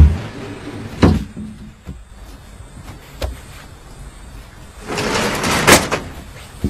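A sliding door rolled along its track for about a second and knocking shut near the end, after a couple of short knocks earlier on.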